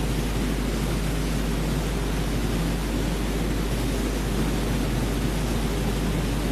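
Airliner cockpit noise during the takeoff roll, as picked up by the cockpit voice recorder: a steady, dense rumble and rush with a constant low hum underneath.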